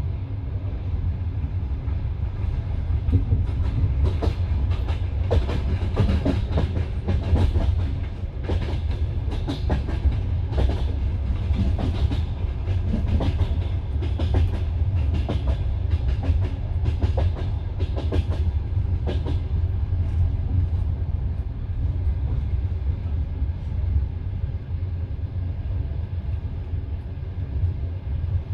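Passenger train carriage rumbling along the track, its wheels clacking over rail joints. There is a run of frequent clacks for most of the first twenty seconds, then mostly steady rumbling with only occasional clacks near the end.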